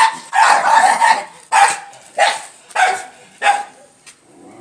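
A dog barking repeatedly, about six barks roughly half a second apart, the first ones longer and the later ones short and sharp, stopping shortly before the end.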